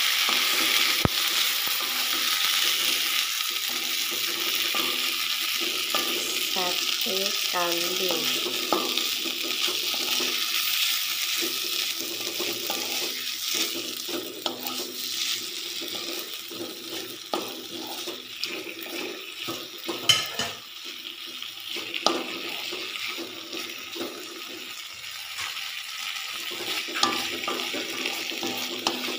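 Chopped meat in a thick gulai sauce sizzling in a wok while a spatula stirs it. The sizzle is loudest early and eases off in the second half, with a few sharp knocks of the spatula against the pan.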